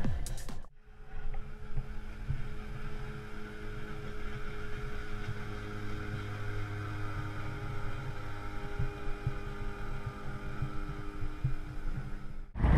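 Outboard motor of a small aluminium fishing boat running along the river, heard as a faint, steady engine hum.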